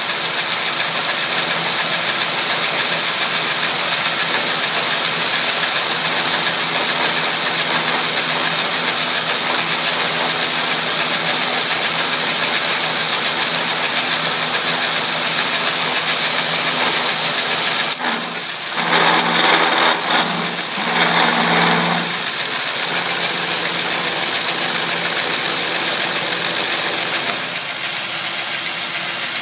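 Atlas lathe running with a milling attachment, an end mill cutting a slot in strap iron: a steady machine hum and cutting noise with some chatter, which may come from the spindle speed not being quite right. About two-thirds of the way in the sound turns rougher and uneven for a few seconds.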